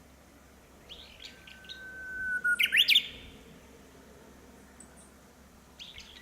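Japanese bush warbler singing its 'hoo-hokekyo' song once: a long steady whistle that swells in loudness, then a quick, loud flourish of notes about three seconds in. Softer short chirps come about a second in and again near the end.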